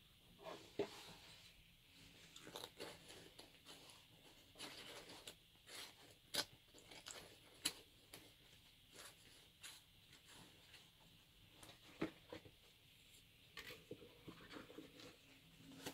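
Quiet handling noise from a Russian IP-5 gas mask kit: rubberised fabric and the rubber mask rustling as they are moved by hand, with scattered light clicks and knocks from its metal threaded fittings.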